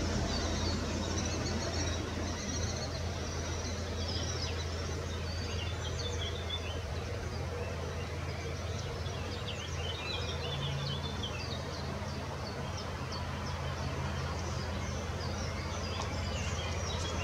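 Small songbirds chirping and singing in short high phrases over a steady low rumble.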